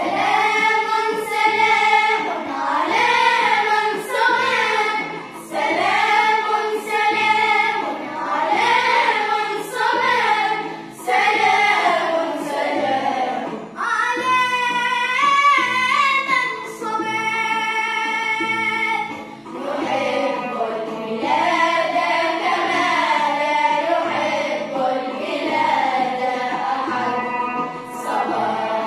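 Children's choir singing a song together in phrases of about two seconds, with brief breaks between phrases.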